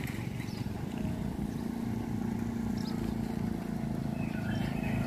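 Motorbike engine idling with a steady low hum.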